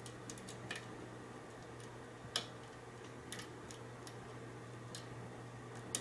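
Lock picks clicking against the pins and brass plug of a Mul-T-Lock Interactive core during single-pin picking: scattered sharp ticks, the loudest about two and a half seconds in and near the end, over a faint steady low hum.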